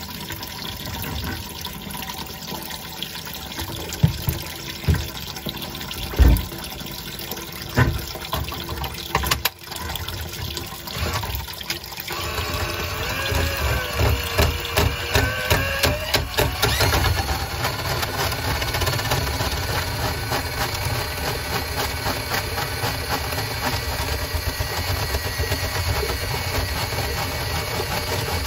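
Water splashing from a drain pipe into a bucket, with a few sharp knocks as a quarter-inch drain cable is fed in by hand. About twelve seconds in, the powered drain snake starts running steadily, spinning the cable into a clogged kitchen sink drain line.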